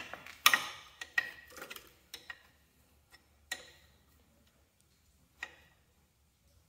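Wrench clinking against brass hydraulic hose fittings while they are tightened at a tractor's remote valve. Sharp metallic clicks come close together in the first two seconds, then a few scattered ones follow.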